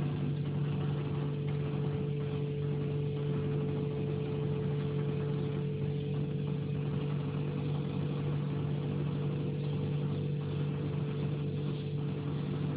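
Steady, even motor hum with no change in speed.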